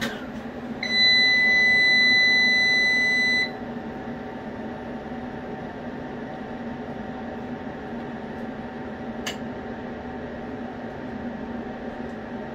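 EG4 6500EX inverter's buzzer sounding one long steady beep of nearly three seconds as the unit wakes up on newly applied AC power, then a steady low hum. A single sharp click comes later.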